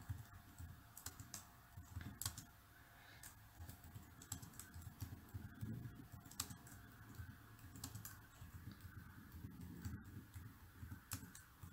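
Faint typing on a computer keyboard: irregular key clicks as a sentence is typed out.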